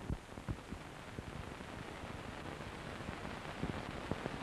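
Steady hiss and low hum with scattered faint clicks and pops: the background noise of an old archival recording.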